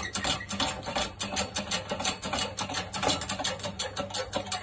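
Hydraulic shop press being worked to force a seized piston down its bore, with a fast, even clicking of about five strokes a second.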